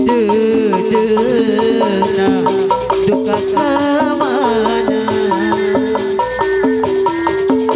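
Sundanese jaipongan gamelan music: a metallophone melody steps up and down in a repeating pattern over drum beats, with a sliding melodic line weaving above it.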